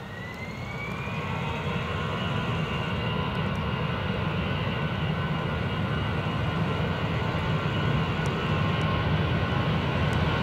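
Airbus A320-214's CFM56 turbofan engines spooling up, with a rising whine over the first couple of seconds, then running steadily and slowly getting louder over a low rumble as the airliner applies thrust at the start of its takeoff roll.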